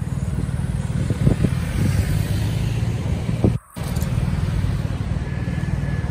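Road traffic passing close by: car and bus engines running over a deep rumble. The sound cuts out for a moment a little past halfway through.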